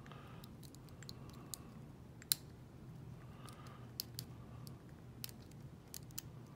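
Lock pick and tension wrench working the pins of a Mako 427 lock: scattered small metallic clicks as the pins are lifted and set, irregularly spaced, with one sharper click about two seconds in. A faint steady low hum runs underneath.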